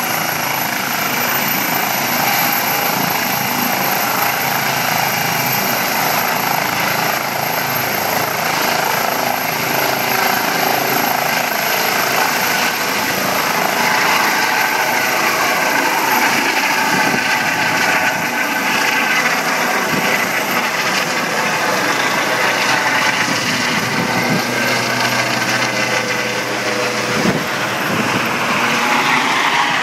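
Eurocopter EC135 air-ambulance helicopter lifting off and climbing away overhead: a loud, steady rotor noise with a high turbine whine running over it.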